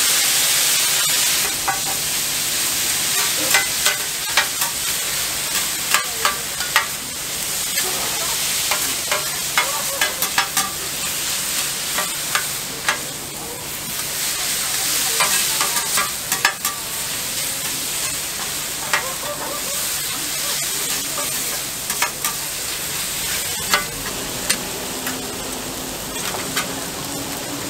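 Pork tripe and vegetables sizzling on a hot flat-top griddle, with a strong burst of steaming sizzle at the start from water just poured onto the plate. Metal spatulas scrape and clack against the griddle again and again as the tripe is stir-fried.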